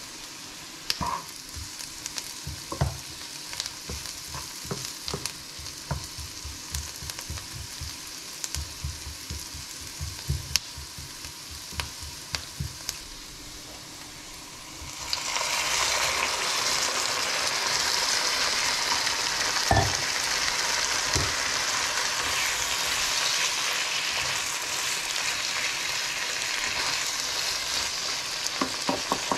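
Diced onion and vegetables sizzling quietly in a frying pan under a run of light clicks and taps. About halfway through, raw chicken hearts go into the hot pan and the sizzle jumps to a loud, steady frying hiss while a spatula stirs them.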